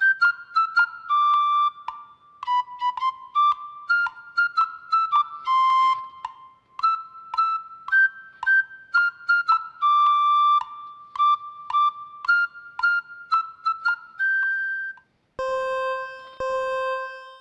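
Background music: a fast melody of short, high notes, which stops about 15 seconds in and gives way to a different passage of held tones.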